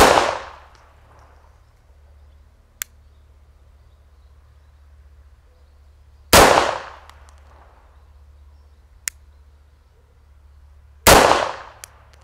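CZ P-09 9 mm pistol fired three times, about five seconds apart, each shot with a short ringing tail. The rounds are Pobeda Goražde Max Tech subsonic 9 mm. A faint sharp tick follows a couple of seconds after each of the first two shots, and another comes shortly after the third.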